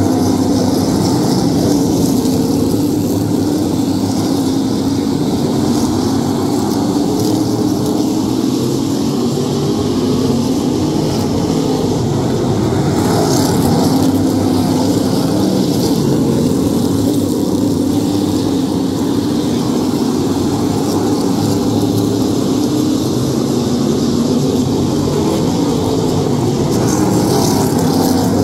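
A pack of Modified race cars' engines running together at low speed, a loud, steady drone of many engines overlapping, with no sharp revving.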